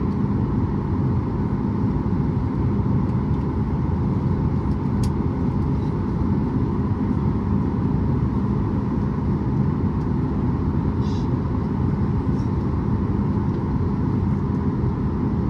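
Steady engine hum and rumble of a Boeing 737 MAX 8's CFM LEAP-1B engines at taxi power, heard inside the cabin by the wing. A couple of faint clicks sound over it.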